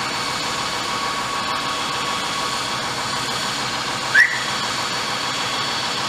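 Heavy construction machinery running steadily, a noisy hum with a few thin high whining tones. About four seconds in, a single short squeak rises in pitch and is the loudest sound.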